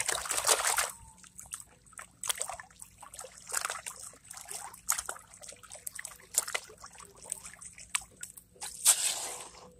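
Water sloshing and splashing as a gold pan is swirled and dipped in shallow water by hand during gold panning, in irregular splashes, the biggest in the first second and again near the end.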